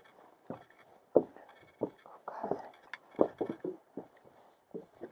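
Irregular footsteps and light knocks of a hiker climbing a steep mountain trail, about six in five seconds, with a short rustle midway.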